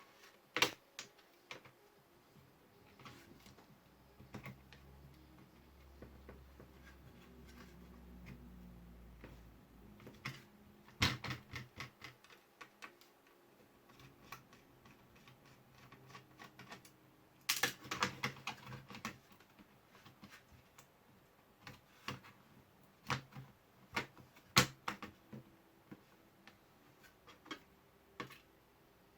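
Scattered sharp clicks and light knocks of small plastic and metal laptop parts being handled and fitted during reassembly. There is a quick run of clicks about 11 seconds in, another about 18 seconds in, and a few louder taps around 23 to 25 seconds in.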